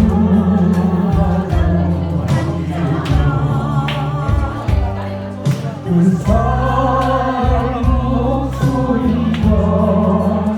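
Slow song sung with long held notes and vibrato over a musical accompaniment with a steady bass.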